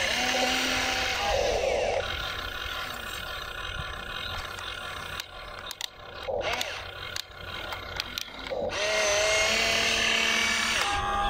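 Small electric motors of a radio-controlled toy excavator whining as the boom, arm and bucket move, gliding up in pitch as they start. Around the middle it goes quieter, with clicks and clattering as the bucket scrapes through gravel.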